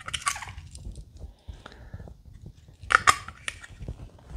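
Small plastic parts bags crinkling as capacitors are handled, in two short bursts: one at the start and a louder one about three seconds in, with light handling noise between.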